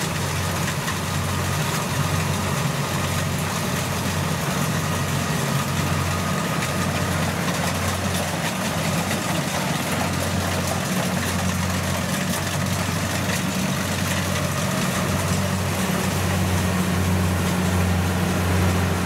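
Kubota DC70 rice combine harvester's diesel engine running steadily under load as it cuts and threshes rice: a continuous low drone that grows a little louder near the end.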